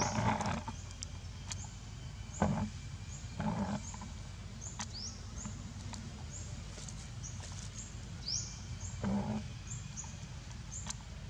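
A small bird gives short, high rising chirps over and over, about one every second. A few brief scuffing noises come near the start, about 2.5 and 3.5 seconds in, and again near the end, over a steady low rumble.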